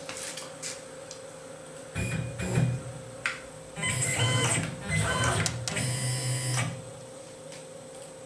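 CNC mill's axis motors whining in short, stepped moves as a digital touch probe feels for the corner of a part: a couple of brief moves about two seconds in, then a longer run of moves from about four to six and a half seconds. A faint steady hum sits under it throughout.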